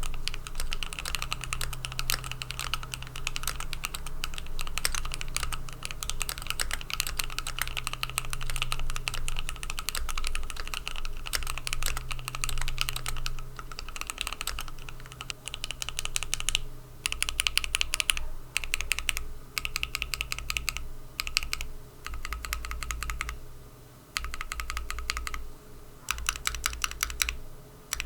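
Typing on a Keychron Q1 mechanical keyboard with lubed and filmed Gateron CJ switches and PBT keycaps on an aluminium plate: a fast, continuous run of keystrokes, breaking in the second half into short bursts with brief pauses between them.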